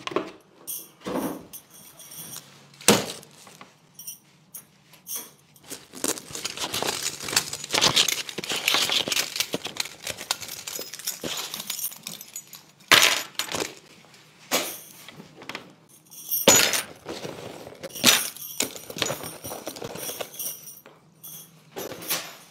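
Takeaway sushi packaging and tableware being handled at a table: rustling with sharp knocks and clinks. The loudest knocks come about three seconds in and again around thirteen and sixteen seconds.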